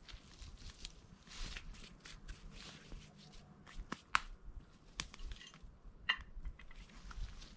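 Scattered small clicks, taps and short rustles at an irregular pace, the sort of noise made by hands handling things.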